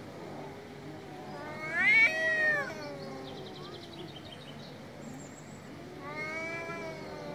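Two male street cats caterwauling at each other in a territorial standoff. A loud yowl rises and falls about two seconds in, and the orange tabby gives a second, quieter drawn-out yowl near the end.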